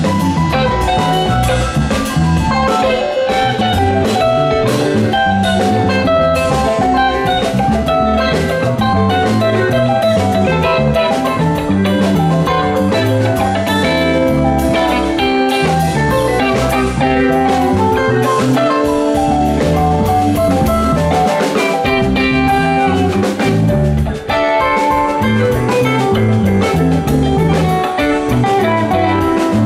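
Live rock band playing: electric bass, electric guitar and drum kit.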